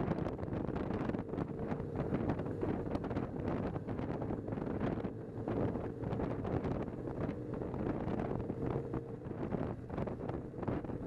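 Wind rushing and buffeting over the microphone of a camera on a moving motorcycle, with the bike's engine running underneath.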